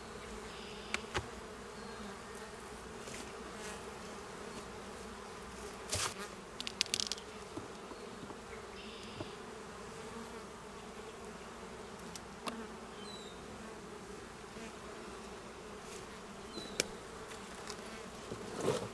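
Honeybees buzzing steadily around an opened hive. There are a few sharp knocks, loudest in a cluster about six to seven seconds in, as the wooden hive boxes are handled.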